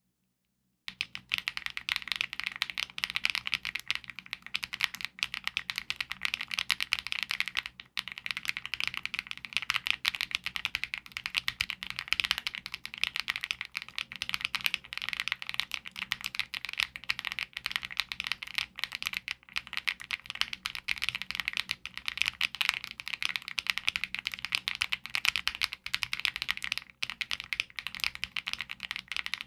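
Continuous fast typing on a mechanical keyboard fitted with Akko switches, a dense stream of keystrokes starting about a second in, with two brief pauses.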